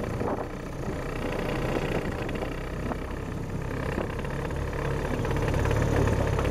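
Mercury 2.5 hp two-stroke outboard running steadily at low throttle with its choke just taken off. Its hum grows slightly louder toward the end.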